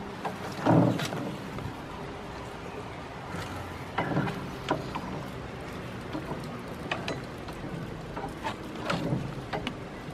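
Goat's hooves knocking and scraping on a wet wooden picnic table: a scatter of short, sharp taps and knocks, irregularly spaced, over a steady background hiss.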